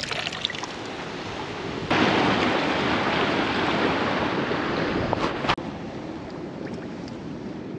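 Sea surf and wind noise on the microphone at a rocky shore. The noise is loudest for about three and a half seconds in the middle, starting and stopping abruptly, and is quieter on either side.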